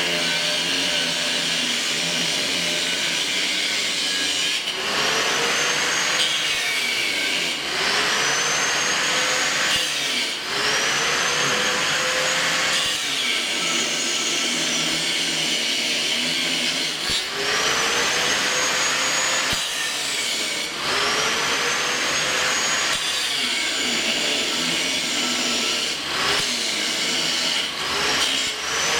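A power grinder working metal. It is pressed into the work and lifted off over and over, and each time it lifts its whine climbs back up to full speed, every few seconds.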